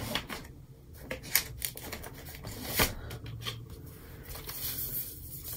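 Paper and sticker-book pages rustling as a sticker book is handled and leafed through, with a few sharp taps and clicks.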